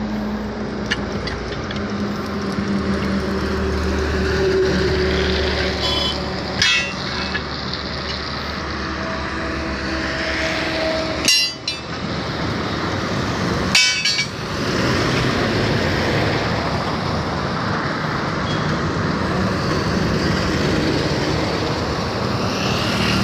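Steady noise of road traffic, broken by about four sharp, ringing metal clanks of steel tyre levers striking a truck wheel's steel rim as the tyre is levered off for a puncture repair.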